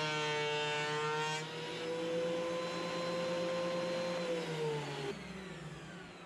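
DeWalt benchtop thickness planer's motor running with a steady whine, its cutting noise easing off about a second and a half in as the board comes clear of the cutterhead. From about four seconds in it is switched off and winds down, the whine falling in pitch and fading.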